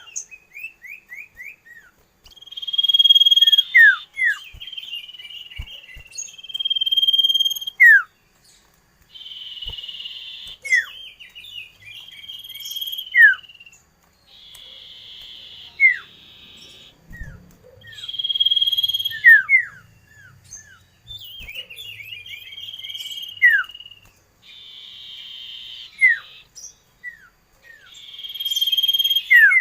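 A songbird singing in repeated phrases about every four seconds: buzzy rattling trills, a held high note and quick down-slurred whistles.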